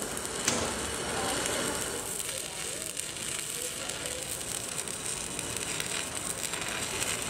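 Stick welder's arc crackling and sizzling steadily as weld is laid onto the lip of a steel excavator bucket, building up a new bucket tooth.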